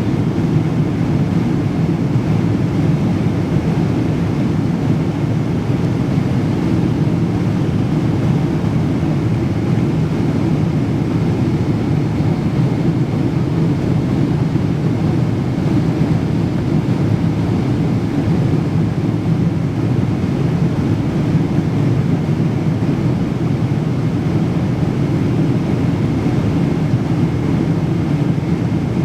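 Jet airliner cabin noise: a steady, unbroken low rumble of engines and rushing air heard from inside the passenger cabin.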